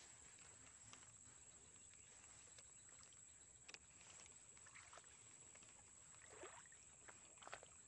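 Near silence: a faint steady high whine, with a few faint clicks and a soft swish in the second half.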